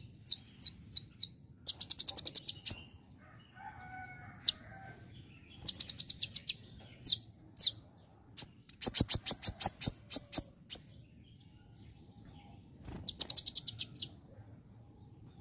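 Purple-throated sunbird (kolibri ninja) singing in sharp, very high chips and fast rattling trills, in several bursts, mimicking bar-winged prinia (ciblek) calls.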